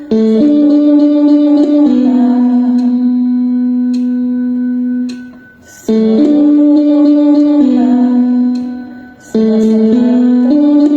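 Slow music of long held notes, played in three phrases with a brief pause between them.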